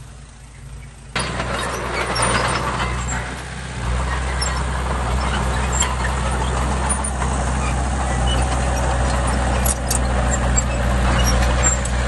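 Diesel engine of heavy earthmoving equipment running steadily. It comes in abruptly about a second in and works harder about four seconds in.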